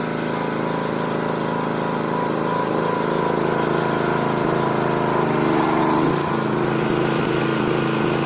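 Gas-engine home pressure washer running steadily while spraying water through a nozzle.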